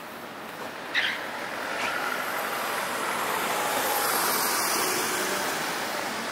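A road vehicle passing close by, its noise swelling to a peak about four seconds in and then fading, with a short sharp hiss about a second in.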